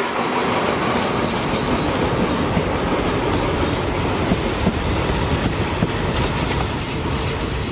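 Alsthom AHK diesel-electric locomotive and its passenger coaches rolling past, the wheels clicking over rail joints and squealing as the train takes the points into the passing loop to stop.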